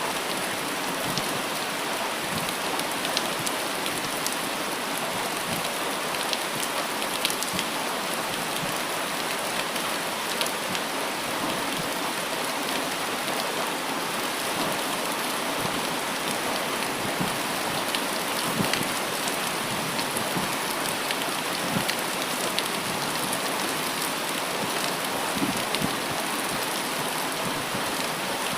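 Steady rain falling, an even hiss with many individual drops ticking sharply close to the microphone.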